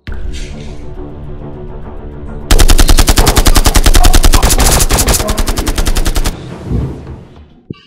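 Music with a steady low drone, then about two and a half seconds in a burst of rapid automatic-gunfire sound effect that runs for nearly four seconds and cuts off abruptly.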